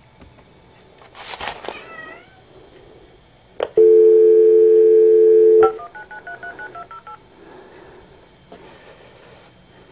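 Corded desk telephone on speakerphone: a click, then a steady dial tone for about two seconds, followed by a quick run of about ten touch-tone keypad beeps as a number is dialled. Near the start a cat meows briefly.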